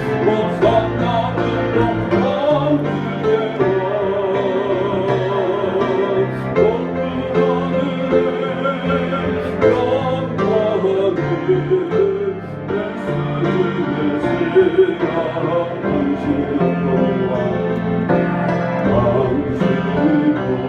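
A church song sung with vibrato over piano accompaniment.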